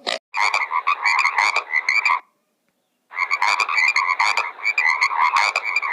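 A dense chorus of many animals calling in rapid, repeated pulses. It cuts off abruptly about two seconds in and starts again a second later.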